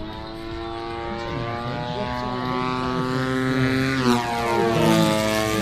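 Giant-scale model aerobatic plane's Desert Aircraft DA-120 twin-cylinder two-stroke petrol engine and propeller, rising in pitch as it approaches. About four seconds in the pitch drops sharply as it passes close by at its loudest.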